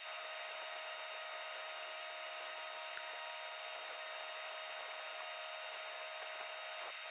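Electric arc welding inside a steel trommel drum: a steady hiss from the arc, with a faint constant whine under it.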